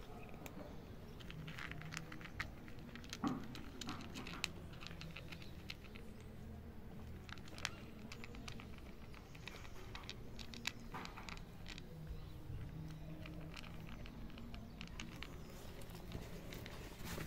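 A cat crunching dry kibble, a run of small, irregular crunches and clicks as it chews.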